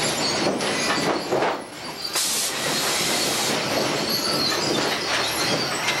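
A sawmill lumber stacker running, its steel chains, rollers and arms clanking and squealing as it moves green pine boards. There are several sharp knocks in the first two seconds and a high hiss for about a second starting about two seconds in.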